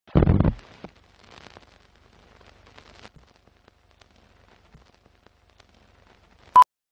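Film-countdown leader sound effects: a loud, short noisy burst at the start, faint crackling and ticking like old film running through, and one short high beep near the end.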